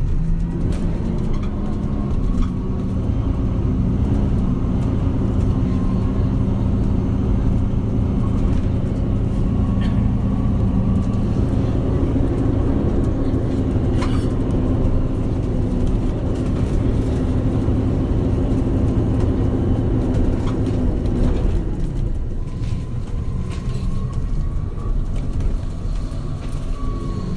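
MAN Lion's City Hybrid city bus running, with a steady low engine drone and a faint whine over it. About three-quarters of the way through, the drone drops away and the whine rises and falls.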